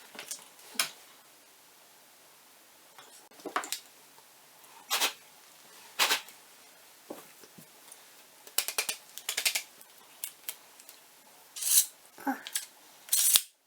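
Small hard parts and tools being picked up and set down during carburetor work: scattered light clicks and clinks, one at a time and in short clusters, with a few louder knocks.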